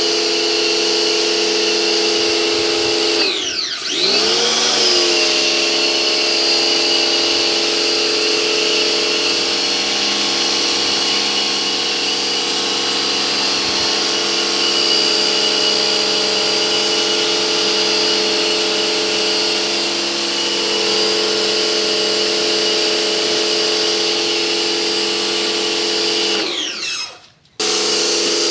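Pressure washer running with a steady motor whine over the hiss of the spray. About three seconds in, it dips in pitch and spins back up. Near the end it winds down, cuts off briefly, then runs again.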